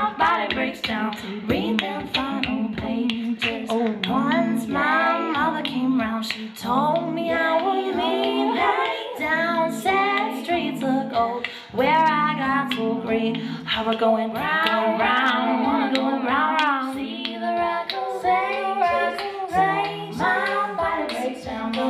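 Live-looped a cappella: a woman singing a melody over layered, repeating vocal parts, with beatboxed percussive clicks throughout.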